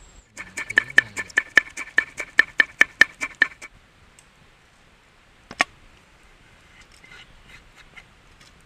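Knife chopping quickly on a wooden cutting board, about five strokes a second for some three seconds, each stroke with a short ring. It is followed by a single knock on the board about halfway through and a few faint taps near the end.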